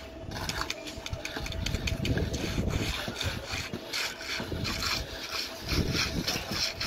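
Steel hand trowel rubbing and scraping over wet concrete in quick repeated strokes, a gritty rasping, over a low rumble and a faint steady hum.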